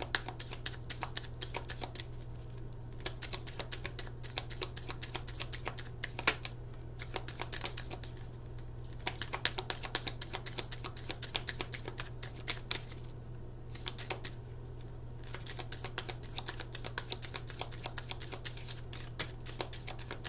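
A deck of oracle cards being hand-shuffled: a rapid patter of card edges clicking and slapping, in spells with short pauses between, over a steady low hum.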